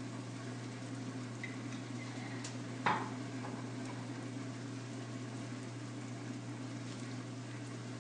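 Eggs frying in a pan on the stove: a steady soft sizzle over a constant low hum. A single sharp clink about three seconds in.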